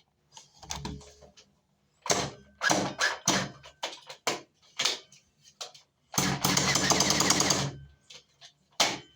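Toy blaster firing: a string of single sharp shots, then a rapid-fire burst lasting under two seconds, then one more shot near the end.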